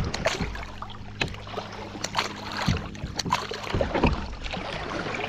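Water splashing and lapping around a kayak, with irregular small splashes and drips.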